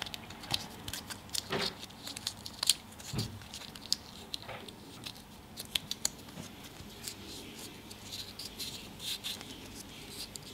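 A small folded paper leaflet, the map from a Kinder Surprise egg, handled and rolled up between fingers: scattered light crinkles and clicks at irregular intervals.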